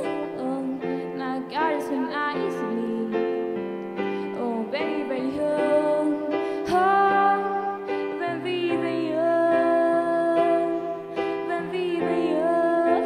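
A young woman singing solo and accompanying herself on an electric keyboard: held sung notes with vibrato over steady piano chords.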